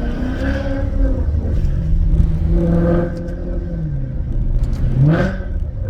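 Maserati GranTurismo S V8 engine and modified exhaust while driving. The note holds steady, falls as the revs drop, then rises sharply in a quick rev blip on a downshift about five seconds in. The owner calls the tone raspy and trumpet-like and blames the aftermarket X-pipe.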